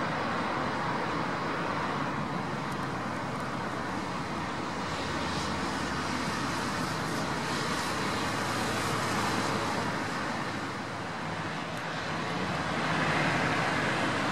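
Jet noise from a business jet's twin rear-mounted turbofans as it lands: a steady rushing sound with a faint constant whine. It dips about eleven seconds in, then comes back louder as a jet taxis near the end.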